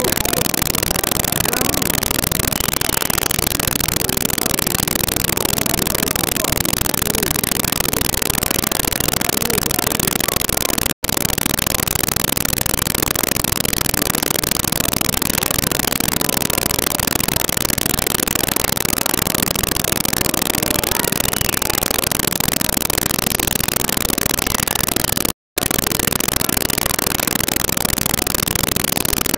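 Loud, steady hiss-like noise across the whole range with no words or distinct events in it, a badly degraded recording. It cuts out to silence for an instant about 11 seconds in and again for about half a second around 25 seconds in.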